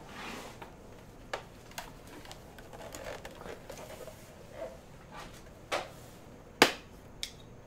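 Monitor stand parts being handled: soft rustling with several sharp clicks and knocks, the loudest about six and a half seconds in.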